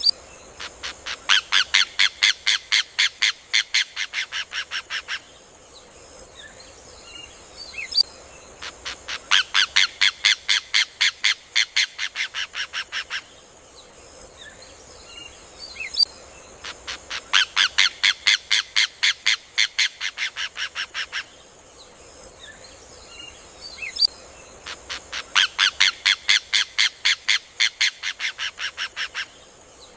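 Rufous hornero (João de Barro) singing: four bursts of fast repeated notes, each about four seconds long and fading toward its end, one about every eight seconds, each opened by a single sharp note. A steady high hiss and faint chirps of other birds lie underneath.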